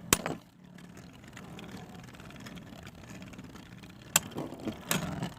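Beyblade spinning tops whirring faintly and steadily in a plastic stadium. There is a sharp click at the start, and two sharp knocks about four and five seconds in as the tops strike.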